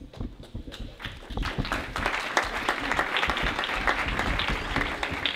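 Audience applauding, building up over the first second or two and then holding steady.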